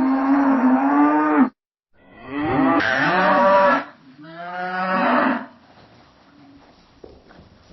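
Cows mooing: a long moo ends about a second and a half in, then, after a brief silence, a cow moos twice. Quieter background follows, with one faint click near the end.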